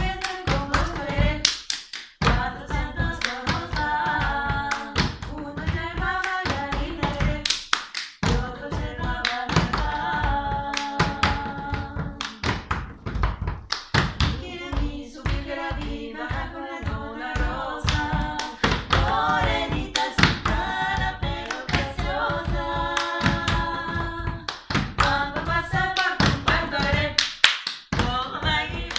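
Three women's voices singing a panaderas song in close polyphony, with a steady rhythm of hands slapping a wooden floor and clapping.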